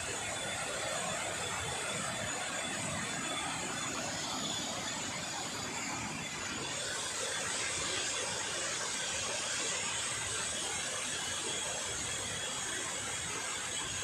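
Steady rush of water pouring over a waterfall's series of low cascades.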